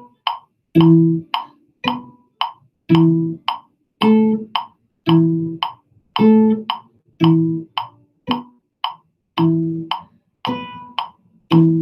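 A cello playing short notes about once a second, in time with a metronome clicking steadily at 112 beats per minute, with a note on every other click.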